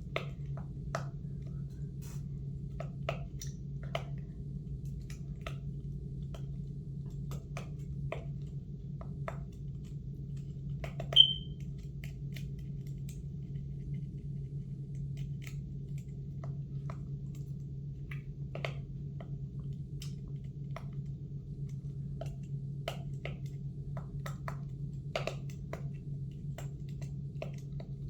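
Scattered light clicks and taps from a plastic pop-it fidget spinner being handled, over a steady low hum. One sharper click with a short high ping comes about eleven seconds in.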